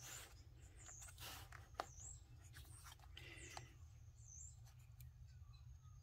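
Near silence, with a few faint ticks and rustles from fingers and a small pick tool working a plastic wiring connector.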